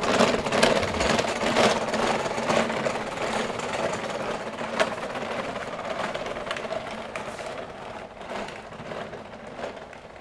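Small hard wheels clattering over interlocking paving blocks: a rapid rattle that fades steadily.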